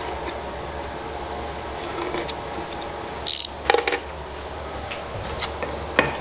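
Bench handling noises as tape shims are cut and placed on a wooden jig block: a short rasp about three seconds in, then a few sharp clicks, and another click near the end, over a steady low hum.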